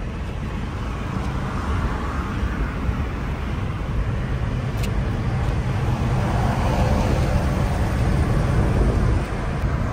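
Road noise of a car driving: a steady rumble of engine and tyres that slowly grows louder.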